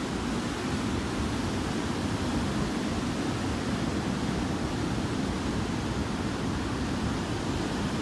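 Rough sea surf: waves breaking and surging up the beach, a steady, deep rushing noise with no letup.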